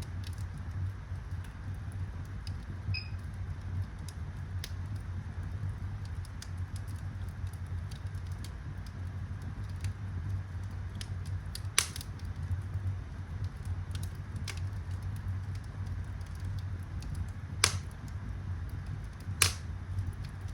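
Wood fire burning in a fireplace over a steady low rumble, with sparse crackles and three louder pops.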